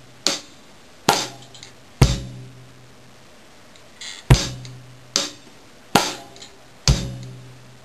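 Drum kit played slowly, one stroke at a time, in a bossa nova pattern. Hi-hat strokes fall with bass drum kicks and a cross-stick rim click on the snare. There are three strokes, a pause of about two seconds, then four more about a second apart.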